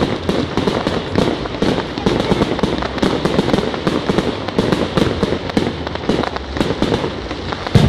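Aerial fireworks display: a dense, continuous barrage of bangs and crackling, with one louder bang near the end.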